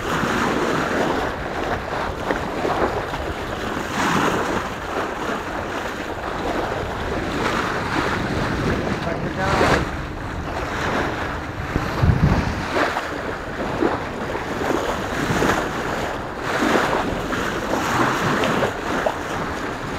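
Sailboat bow cutting through the open sea: water rushing and splashing along the hull, swelling and easing every second or two, with wind buffeting the microphone.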